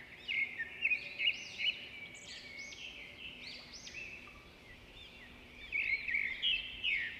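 Small birds chirping: quick, arched, high chirps repeated rapidly, in a busy bout during the first couple of seconds and another near the end, with sparser chirping in between.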